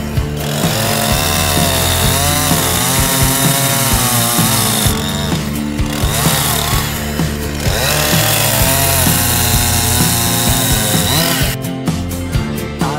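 Chainsaw cutting through a rhino's horn, mixed with a song with singing. The saw stops about a second and a half before the end while the song goes on.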